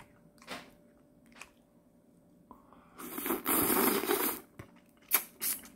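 A person biting into a piece of soy-sauce marinated raw crab (ganjang-gejang): a few small mouth clicks, then about three seconds in a loud stretch of wet crunching lasting about a second and a half, with a couple more clicks near the end.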